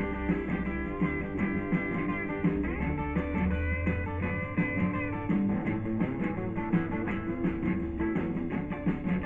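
Instrumental break of a rock song, with a guitar lead over a bass line and no singing.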